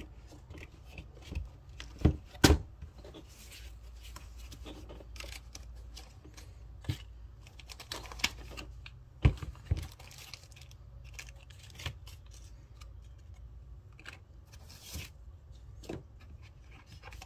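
Hands handling a hard plastic gun case and what it holds: two loud sharp snaps about two seconds in as the case's latches are flipped open, then crinkling plastic wrap, rustling foam and paper, and scattered clicks and knocks of plastic.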